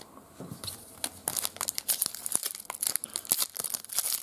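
Foil wrapper of a trading card pack crinkling and tearing as it is opened by hand: a dense run of sharp crackles starting about half a second in.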